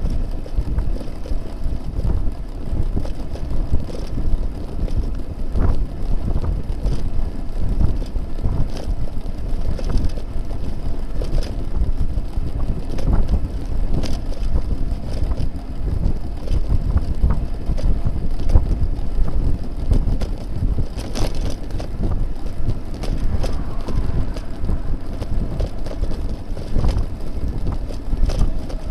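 Wind buffeting a bicycle-mounted camera's microphone while riding, a steady low rumble broken by frequent small knocks and rattles.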